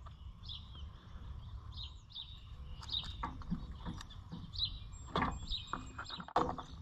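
Light metallic clicks of a chainsaw's chain and adjusting tool being handled as the chain tension is loosened, with a few sharper clicks near the end. Birds chirp in short calls about once a second over a low wind rumble.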